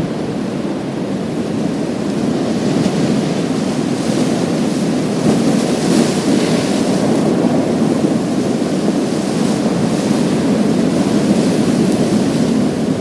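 Sea waves breaking and washing over a pebble beach: a steady, loud rushing surf that swells about halfway through as a bigger wave comes in.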